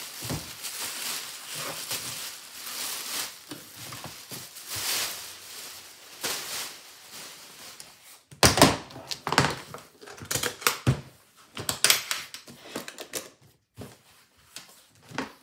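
Clear plastic wrapping crinkling and rustling as it is pulled off a hardshell guitar case. About halfway through it gives way to a run of sharp clicks and knocks as the case is handled on a wooden floor.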